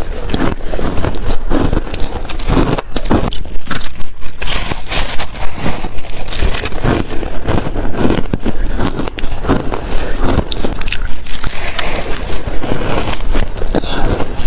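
Close-miked biting and chewing of shaved ice: a dense, irregular run of loud crunches.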